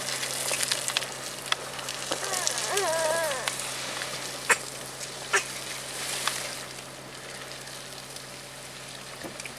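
Car driving slowly over a rough dirt track, heard from inside: scattered knocks and ticks over a steady low hum, with a short wavering squeal a little over two seconds in.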